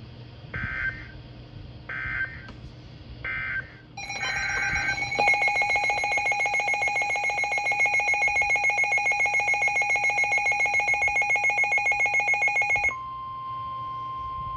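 Emergency Alert System digital data tones: three short screeching bursts of the end-of-message code. Then a loud, rapidly pulsing electronic alarm tone sounds for about eight seconds and gives way, about 13 s in, to a steady single-pitch alert tone of the kind that precedes a weather-radio warning.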